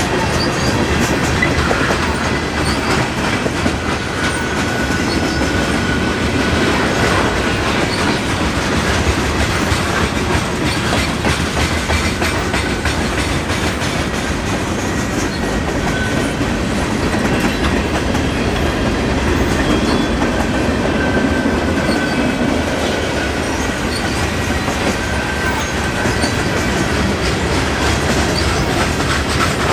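Freight train cars rolling past, a steady loud rumble with wheels clicking over the rail joints and a faint wheel squeal now and then.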